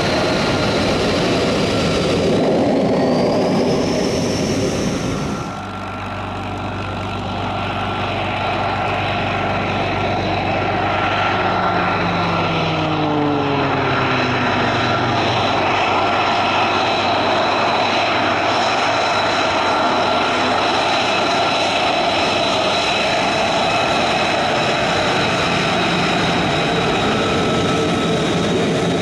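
F-35 Lightning II's single F135 turbofan running at taxi power: a steady jet roar with a high, steady whine over it. The sound changes abruptly about five seconds in.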